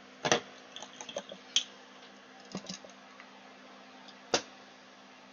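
Scattered small clicks and taps of tools and small parts handled on a workbench, the loudest about four seconds in, over a faint steady hum.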